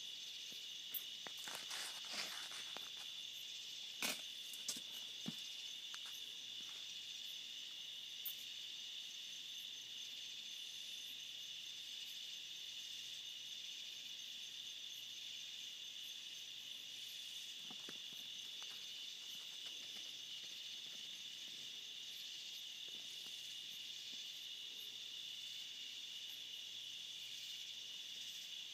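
Steady, high-pitched chorus of night insects chirring, with a few sharp clicks in the first several seconds.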